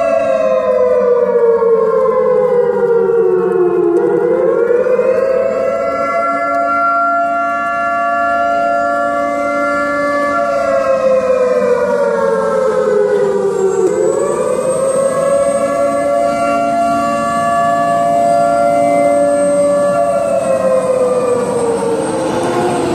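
Air-raid-style warning siren wailing, sounding the alert for a fighter scramble. Its pitch slides slowly down, rises sharply twice about ten seconds apart, holds, and then slides back down each time.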